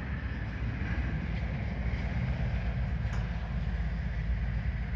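Wind buffeting the microphone outdoors: a steady, fluttering low rumble with a fainter hiss above it.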